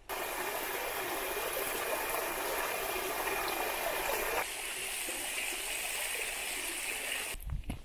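Stream water running steadily over rocks; the sound shifts suddenly about halfway through, then cuts out near the end, where footsteps on the trail begin.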